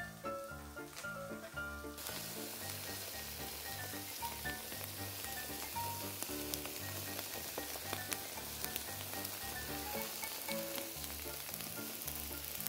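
Eel sizzling and crackling as it grills, starting suddenly about two seconds in and continuing steadily, over a background music track.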